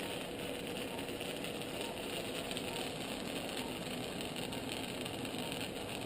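Steady hum and hiss of operating-room equipment running, with a few faint steady tones and no distinct events.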